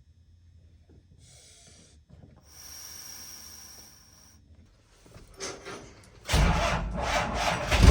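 Faint hissing, then about six seconds in a loud, rough engine noise from the first-gen Dodge truck starts and keeps going.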